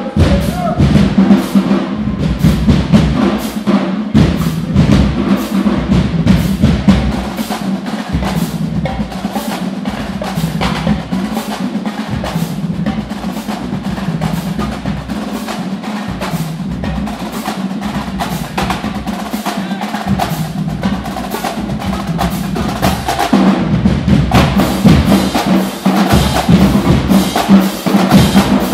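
Drumline drums playing a fast, dense cadence of rapid strikes. It gets louder and heavier in the low drums about two-thirds of the way through.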